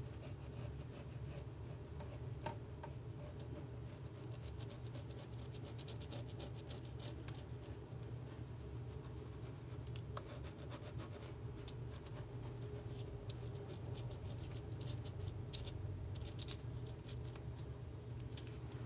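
Faint rubbing and scratching of a glue bottle's nozzle drawn along a paper craft rim as glue is squeezed out, with scattered light ticks. A steady low hum sits under it throughout.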